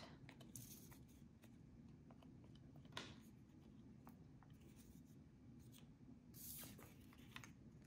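Faint scraping and rubbing of a scrap piece of cardstock spreading glue across a cardstock fin, with a small tap about three seconds in.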